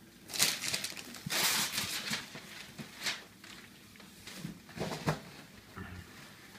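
Gift wrapping paper tearing and crinkling in several separate rips as a present is unwrapped, the longest rip a little over a second in.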